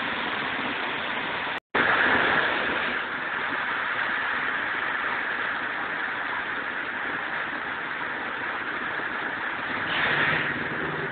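Heavy rain falling steadily, heard as a constant hiss through an old Nokia phone's microphone, with a very brief gap in the sound about two seconds in.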